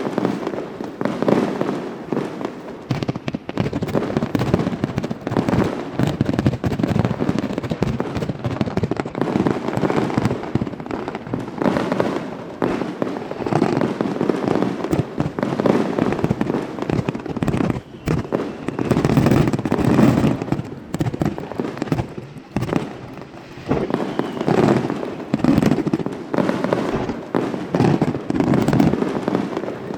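Aerial fireworks shells bursting in a dense barrage, many bangs and crackles overlapping with hardly a gap, easing briefly a little past the middle.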